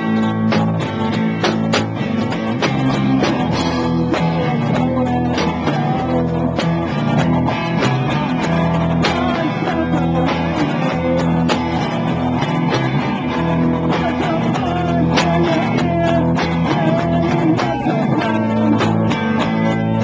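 A live band playing loudly: guitars holding chords over steady drum beats and cymbal hits.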